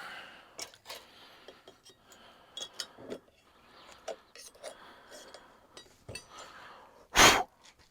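Small metal parts and tools clinking and tapping on a workbench as they are handled, with one louder, harsher burst of sound lasting about a third of a second near the end.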